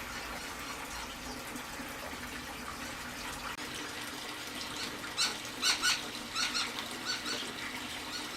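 Small patio fountain trickling steadily, with a bird giving about eight short, sharp chirps over two seconds starting about five seconds in.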